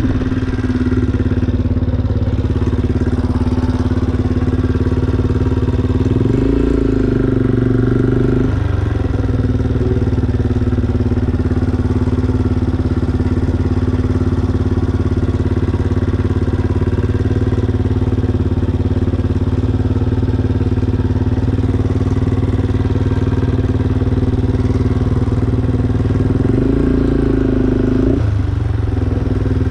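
Yamaha Raptor 350 quad bike's single-cylinder four-stroke engine running while riding at low speed. It gets louder twice, about six seconds in and again near the end, as the throttle opens, and each time drops back suddenly.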